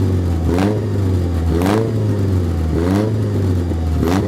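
Freshly rebuilt Toyota 4A-GE 16-valve inline-four running, its throttle blipped four times about a second apart. Each blip gives a short rising rev over the steady idle and starts with a sharp crack.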